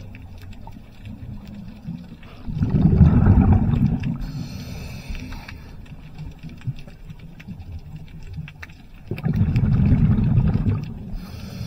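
Scuba diver breathing through a regulator underwater: a hissing inhale, and twice a rumbling gush of exhaled bubbles, in a slow cycle about seven seconds long.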